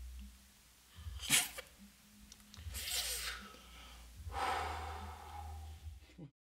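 A man noisily slurping a drink from a cup: three breathy slurps, the first short and the loudest about a second in, the next two longer.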